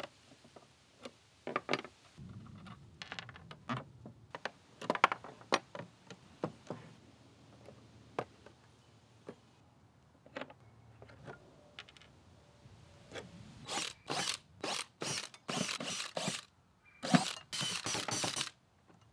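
Light clicks and knocks of screws and small hardware being handled and set down on wood. Near the end, a cordless drill-driver backs screws out of the table's metal extension slides in several short bursts, each under a second.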